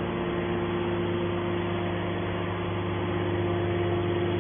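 Hydraulic metal baler running, its motor and pump giving a steady, even hum with a low tone and a higher tone held throughout.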